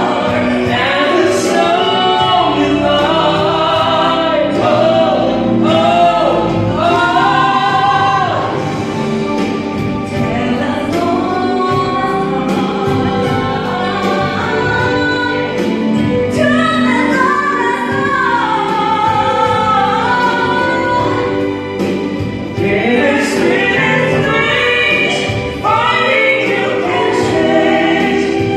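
A woman and a man singing a duet through microphones over an accompaniment track, mostly the woman's voice.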